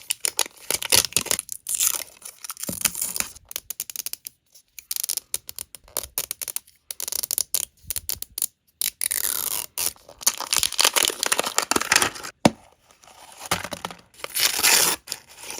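Plastic packaging crinkling and tearing in irregular bursts as a Miniverse surprise ball is unwrapped, with one sharp click about twelve seconds in.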